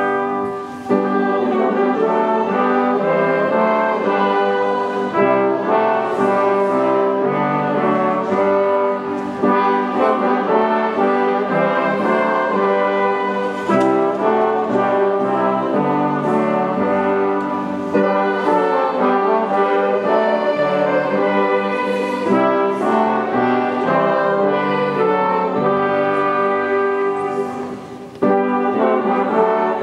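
Hymn music in the church: full, sustained chords moving from phrase to phrase, with short breaks about a second in and near the end.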